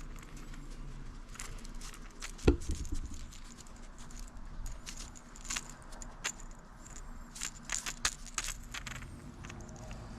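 Hands working a snagged crankbait free of matted carpet and debris: light metallic clicks and scratching, with one sharp thump about two and a half seconds in.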